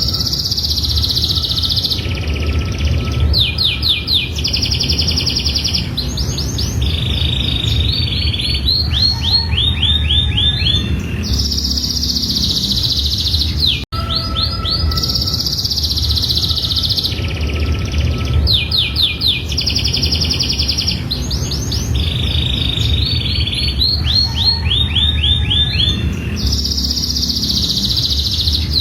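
Domestic canary singing a long, continuous song of fast trills and buzzy rolls, switching every second or two between rapid repeated notes and rattling phrases, over a steady low hum. The song breaks off for an instant about halfway through and then the same run of phrases starts over. It is the long, non-stop 'gacor' song played to make other canaries answer.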